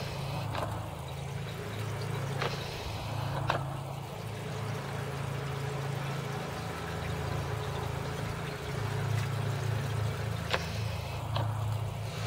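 Steady low drone of an engine running on the neighbours' landscaping equipment, with a few faint clicks.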